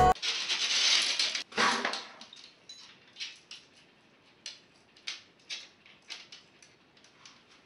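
A person handling fishing rods and gear: a rustling noise for about a second and a half, then scattered light clicks and clinks of small hard objects.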